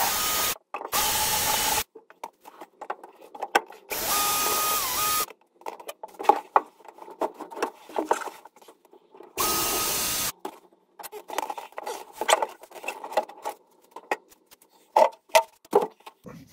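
Cordless drill-driver running in four short bursts, driving screws out of a car's floor panel. Between the bursts come clicks and knocks from the panel, the screws and the tool being handled.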